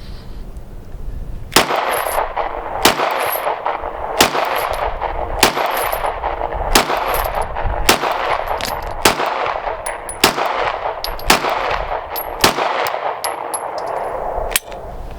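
About eleven shots from a 9mm Dagger semi-automatic pistol, fired one at a time at an even pace of roughly one a second, each with a short echo. The last shot comes after a slightly longer pause. The string is a test of a magazine suspected of causing double feeds.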